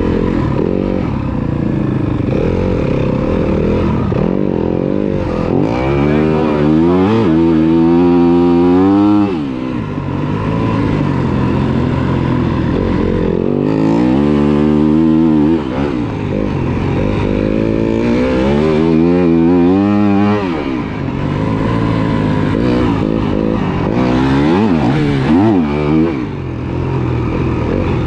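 Dirt bike engine ridden with a patient, gentle throttle on ultra-slippery ground to keep the rear tyre from sliding. The revs climb in about four long swells and fall back between them.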